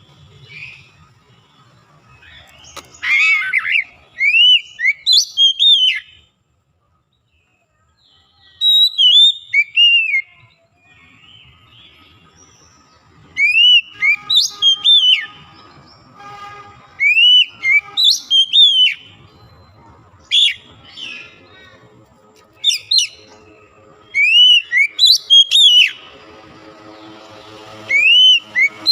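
Oriental magpie-robin (kacer) singing: short phrases of loud, clear whistled notes, each rising and falling back, repeated every few seconds with brief pauses. A faint steady hum with several level tones comes in near the end.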